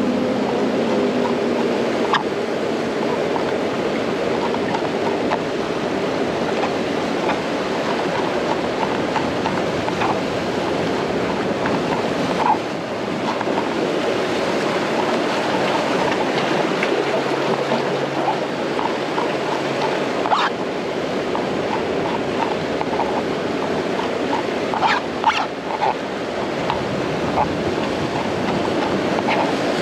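Steady wash of sea surf breaking on the shore, with a few scattered sharp clicks or knocks.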